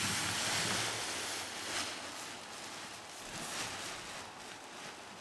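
Wind rushing over the microphone, loudest in the first second and a half and then easing, with a couple of short gusts later.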